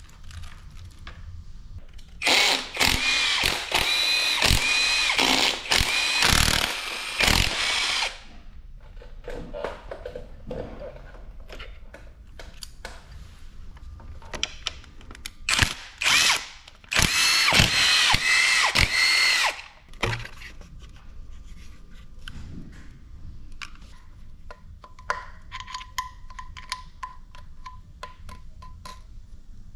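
Cordless power driver spinning out engine cover bolts: two runs of several seconds each with a steady whine, a few short bursts between them, and small clicks of metal parts being handled.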